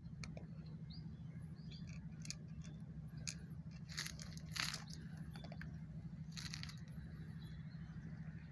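A cat eating: short, irregular crunching and chewing noises over a steady low hum.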